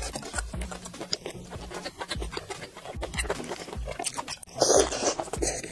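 Close-miked eating sounds: wet chewing and mouth noises, with crackling and squelching as sauce-coated lobster is pulled apart by gloved hands. A louder crackling stretch comes near the end.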